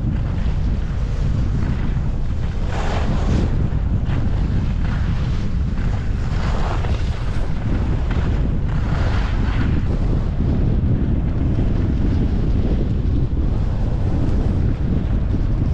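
Wind rushing over a GoPro Hero 10's microphone while skiing downhill, a steady low buffeting. Over it come several hissing surges as the skis scrape across packed snow in turns.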